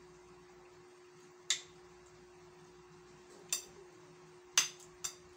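Metal spoon clinking against ceramic plates while eating: four sharp taps spread out, the third the loudest, over a faint steady hum.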